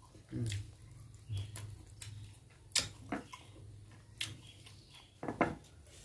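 Close eating sounds: wet mouth clicks and smacks with a few sharp ticks, and a couple of short low voice sounds about half a second in and near the end.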